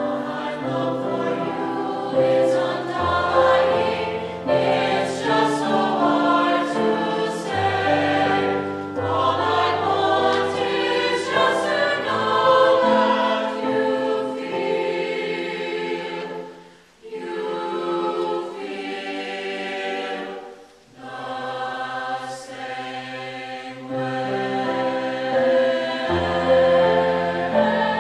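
Mixed choir of men's and women's voices singing a choral piece in held, changing chords, with two short breaks about 17 and 21 seconds in.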